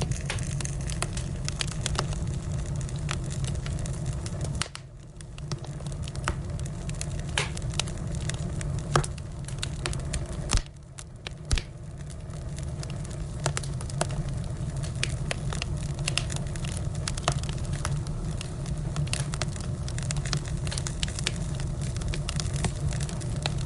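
Firewood burning, crackling with frequent sharp pops over a steady low hum. The background hum drops out briefly twice.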